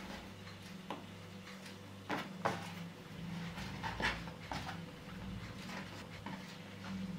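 Soft taps and rubbing of hands working strands of dough into a braid on a floured wooden board, over a low steady hum. The sharpest taps come a little after two seconds in and again about four seconds in.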